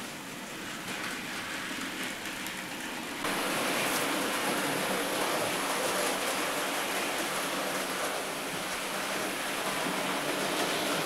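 Hornby 00-gauge model trains running round the layout: a steady rushing noise of wheels on the track and small motors, jumping louder about three seconds in.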